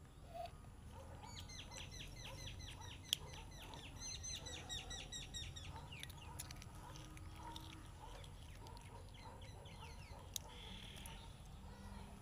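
A bird calling in the background: two runs of quick, short falling chirps, about five a second, starting about a second in and stopping about halfway through. A single sharp click sounds about three seconds in.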